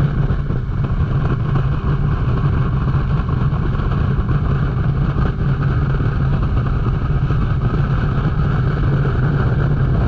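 Motorboat underway at speed: its engine running with a steady low drone over the rush of water from the wake.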